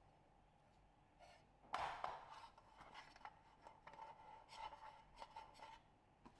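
Soft handling noises as bread dough is set into a black metal bread pan: light taps, rubs and clicks of the dough and fingers against the pan, loudest about two seconds in.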